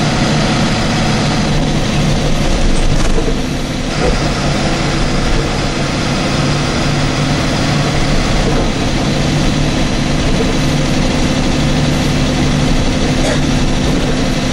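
Steady running noise inside a moving vehicle with a low engine drone. After a short dip about four seconds in, it is the cabin of a MAN SL283 bus with its diesel engine running at a steady pace.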